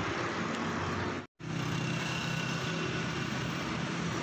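Steady hum of vehicle engines and road traffic. The sound cuts out completely for an instant about a second in.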